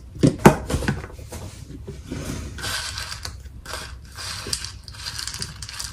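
A few light knocks of a bowl against a small steel mixer jar in the first second, then a soft scraping and rustling as garlic cloves are tipped out of the bowl onto the mint and greens in the jar.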